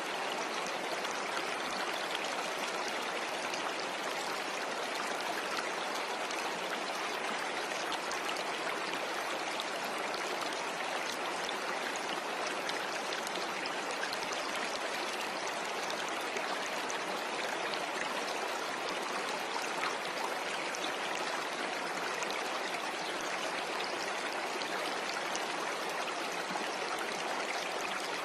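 Running water: a steady, even rush of flowing water with no breaks.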